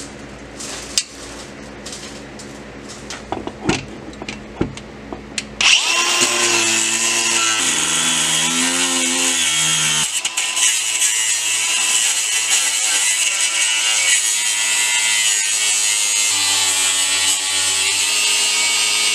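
A handheld grinder with an abrasive cut-off wheel cutting through the steel shell of the stock driveshaft center support bearing carrier, a steady loud grinding with a whining tone. It starts suddenly about six seconds in, after a few light knocks and clicks.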